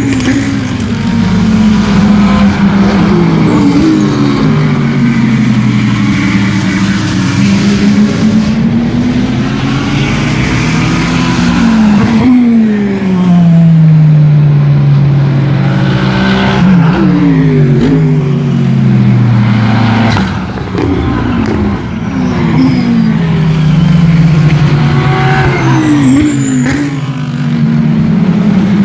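GT3 race cars at full throttle, several engines heard at once, their notes repeatedly climbing through the gears and dropping sharply as cars pass or shift down.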